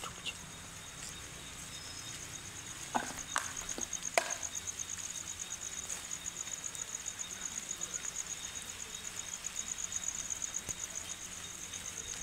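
Cricket trilling steadily at a high pitch, a fast even pulsing, with a few sharp clicks about three to four seconds in.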